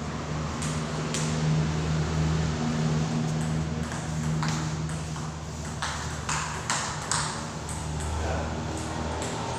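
Table tennis rally: the celluloid ball clicking sharply off paddles and the table, with a quick run of four hits about six to seven seconds in. A steady low hum runs underneath.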